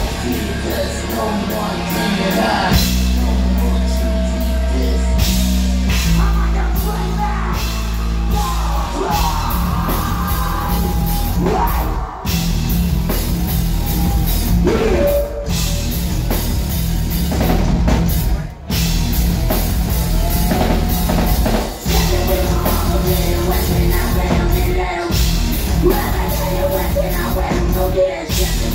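Live rock band playing loudly: electric guitar, bass and drum kit, with a male singer on vocals. The band briefly breaks off several times.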